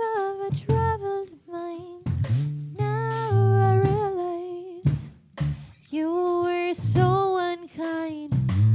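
A woman singing held, wordless notes with a slight waver, in several phrases separated by short breaths. Low sustained instrumental notes, likely guitar, sound underneath.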